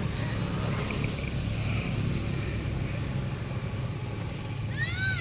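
Steady low rumble of a running engine. Near the end there is one short high-pitched call that rises and then falls.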